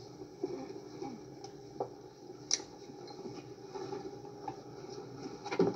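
Quiet airliner-cabin background with a few soft clicks and knocks of passengers moving about and handling luggage at the overhead rack, and a louder knock near the end.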